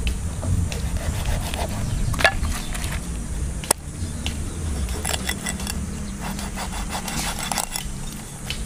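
A large kitchen knife slicing and scraping along a big fish's backbone, with small ticks of the blade on bone and one sharp click a few seconds in. A steady low rumble of wind on the microphone runs underneath.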